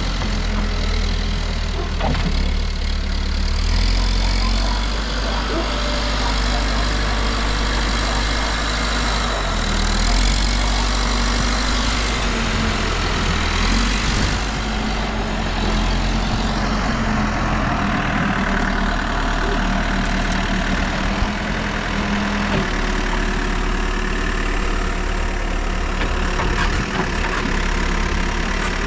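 New Holland backhoe loader's diesel engine running steadily under work, its note shifting every few seconds as the load changes, with a couple of faint knocks in the second half.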